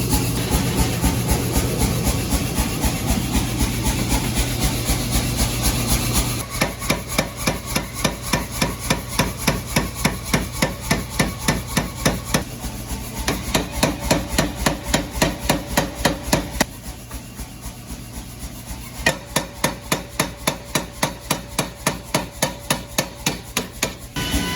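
Power hammer drawing out the hot end of a 1 x 2 inch solid steel bar: rapid, evenly spaced blows, about four a second, over the machine's steady hum. The blows pause briefly past the middle, then start again.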